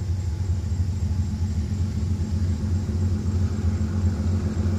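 Steady low rumble of a freight train's diesel locomotives, an ES44C4 and an SD40-2, running at the head of the train.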